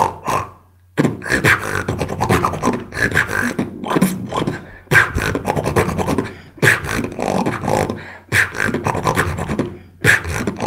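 Solo beatboxing: one performer making kick, snare and bass sounds with the mouth, in rapid repeating beat patterns. It breaks off briefly just before the first second, then runs on in phrases that restart with a strong hit about every one and a half to two seconds.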